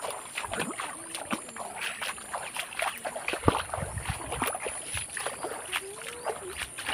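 Footsteps wading through shallow floodwater on a path, a steady run of short, uneven splashes and sloshes.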